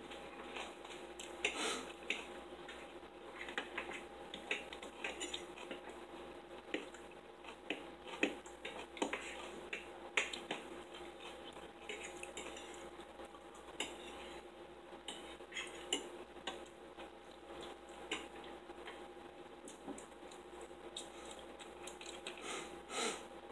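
Cutlery clinking and scraping against plates as people eat, in short, irregular clicks. A faint steady hum runs underneath.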